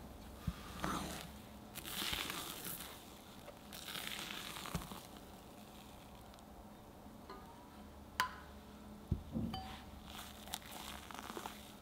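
Silicone spatula folding flour into whipped egg batter in a glass bowl: soft swishing scrapes through the thick batter, with several light taps and clinks of the spatula against the glass, the sharpest in the later part.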